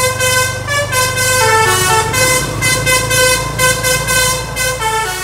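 Basuri telolet bus horn playing a multi-note tune of held tones that step down in pitch in the middle and back up again, over a low steady hum.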